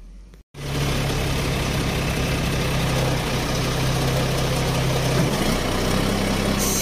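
Dump truck's diesel engine running with the PTO-driven hydraulic pump engaged to raise the loaded dump box. It is a steady drone whose note shifts about five seconds in.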